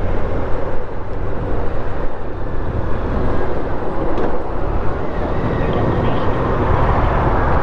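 Motorcycle on the move: steady wind rush on the rider's microphone over the low rumble of the engine and road.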